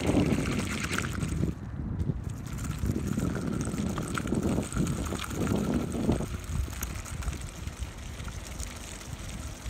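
Homemade wooden RC buggy driving over wet, muddy ground, its tyres churning through the mud in an uneven wet rush.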